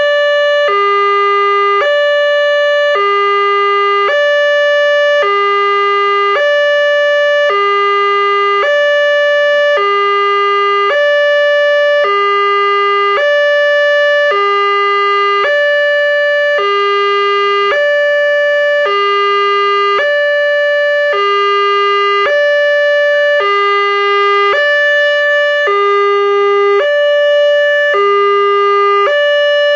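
Indonesian railroad-crossing electronic warning signal from the loudspeaker on the crossing post: a loud two-tone alarm alternating evenly between a higher and a lower note, each held about a second. It sounds while the barrier is down and warns that a train is approaching.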